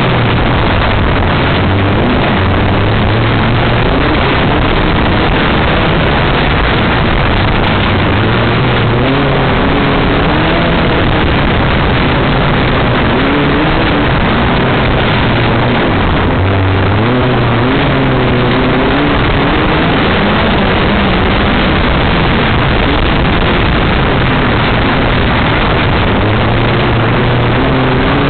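Class 5 off-road race car's engine, heard from on board, revving up and down repeatedly as it races over rough grass, under a continuous loud rush of wind and chassis noise.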